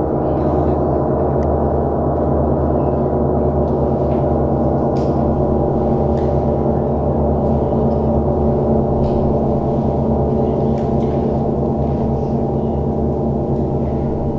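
Large gong sounding in a dense, sustained wash of many overlapping tones that holds steady without dying away.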